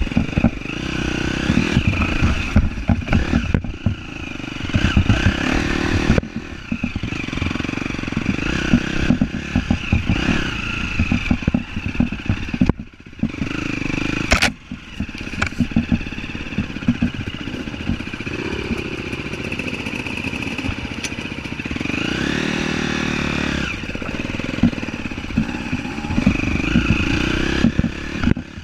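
An off-road vehicle's engine running over rough trail, with frequent clattering knocks and rattles. The engine revs up and back down about three-quarters of the way through.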